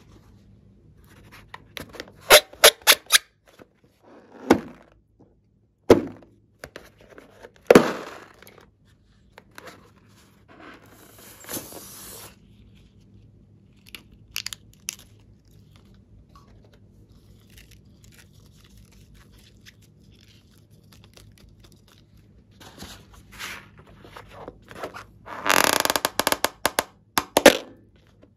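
Rubber balloons being handled and cut open with scissors: a run of sharp clicks and snaps, three dull thumps, a few scissor snips about halfway through, and a longer, louder crackling stretch near the end.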